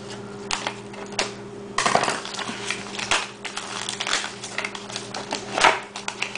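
Plastic shrink wrap crinkling and crackling as a metal can of cat food is worked loose from a shrink-wrapped tray of cans, with many light clicks and rattles, loudest about two seconds in and again near the end.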